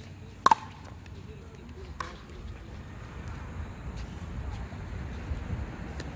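Pickleball paddle hitting the plastic ball: a sharp double pop about half a second in, then a fainter pop about two seconds in. A low steady rumble runs underneath.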